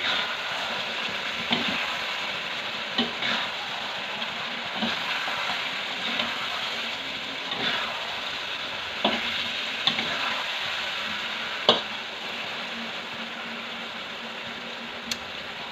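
Sweet potato pieces sizzling as they fry in a metal pan while being stirred, with irregular sharp clinks of the stirring utensil against the pan every second or two.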